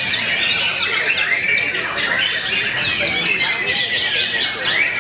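Several caged white-rumped shamas (murai batu) singing at once, a dense unbroken tangle of overlapping whistles, trills and chirps.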